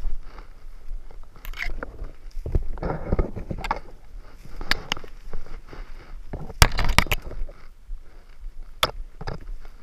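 Footsteps crunching through tall dry grass and brush, with stems scraping against clothing and a few sharp cracks of snapping twigs.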